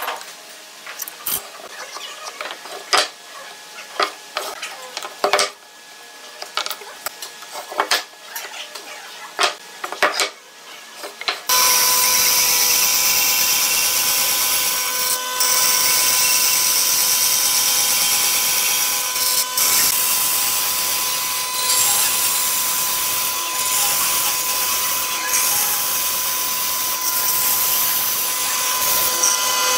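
Scattered clicks and taps of hand tools on a wooden workbench, then about eleven seconds in a band saw starts up suddenly and runs steadily with a constant hum as it cuts a notch into the end of a wooden table leg.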